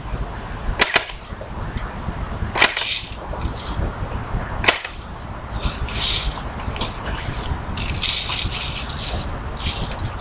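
Three sharp cracks about two seconds apart in the first half, with rustling and handling noise between and after them.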